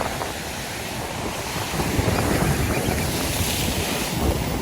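Heavy sea swell surging and washing against the rocks below, with wind buffeting the microphone. The surf swells louder about halfway through.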